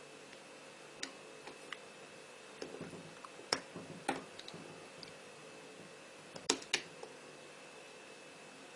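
Light, irregular clicks and taps of small hard parts and tools being handled, about six in all, with two close together about two thirds of the way through, over a faint steady hum.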